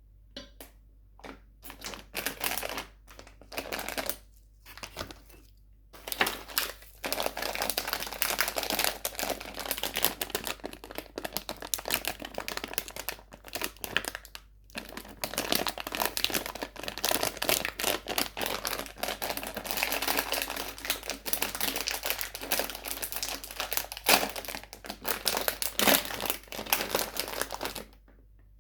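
Plastic sweet wrappers crinkling as they are handled and unwrapped: dense, irregular crackling with a few brief pauses.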